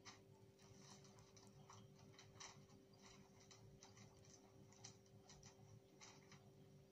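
Very faint, irregular crinkles and clicks of gift-wrapping paper and a plastic treat packet being handled and folded, over a steady faint hum.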